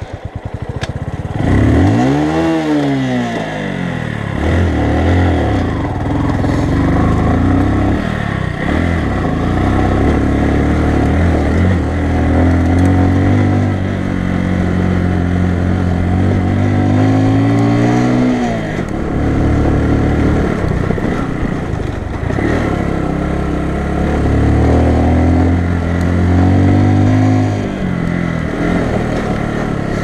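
Bajaj Boxer 150 motorcycle's single-cylinder four-stroke engine running under way on a gravel track, its revs rising and falling with the throttle. There is a quick rev-up and drop about two seconds in, then steadier running with another swing in revs partway through.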